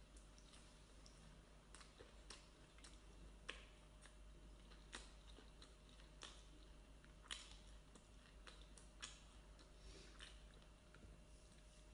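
Faint close-up eating sounds: a person chewing, with irregular soft mouth clicks and smacks.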